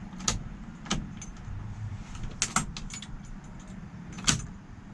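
A handful of sharp metallic clicks and jingles from the ignition key and keyring as the key is worked, with no cranking from the 6.2 diesel's starter. A faint steady low hum runs underneath.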